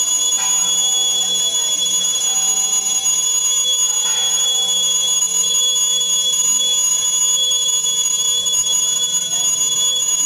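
Temple bells being struck, their long overlapping ringing tones hanging in the air, with fresh strikes about half a second in and again about four seconds in. A steady high-pitched tone sits under the ringing.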